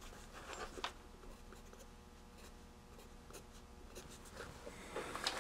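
Pencil writing on a paper notepad: faint, short scratching strokes, a little stronger near the end.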